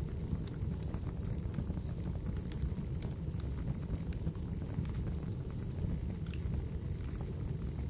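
Wood fire burning, with a steady low rumble of flames and scattered sharp crackles and pops from the burning wood.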